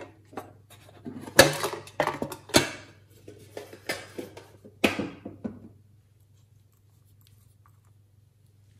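Clicks and clanks of a metal tin box and a small glass nail-polish bottle being handled, sharpest about a second and a half in and again around five seconds, then stopping about six seconds in.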